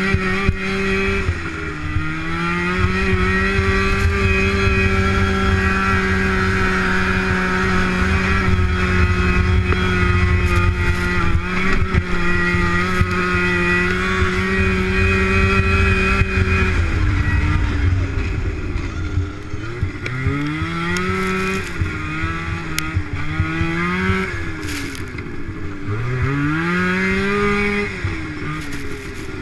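Two-up snowmobile engine at racing speed, held at a steady high pitch for about fifteen seconds, then revving down and up again and again as the throttle is let off and reopened, over a low rumble.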